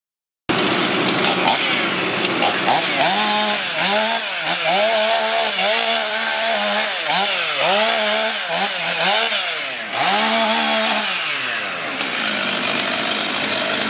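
Chainsaw cutting through felled tree trunks. It starts abruptly about half a second in, and its engine revs up and drops back again and again as the chain bites into the wood. Near the end the revving gives way to a steadier engine sound.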